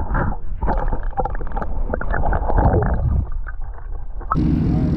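Low rumbling with splashing and knocking, then about four seconds in, a sudden cut to the steady loud drone of an airboat's engine and propeller.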